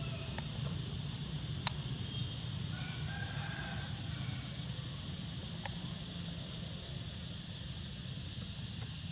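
Steady outdoor background of high hiss and low rumble, with a few faint sharp clicks and a faint distant pitched call about three seconds in.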